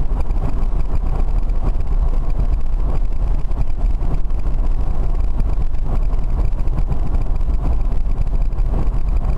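Steady road and wind rumble of a BMW electric-vehicle conversion driving at motorway speed, heaviest in the deep low end, with no engine note.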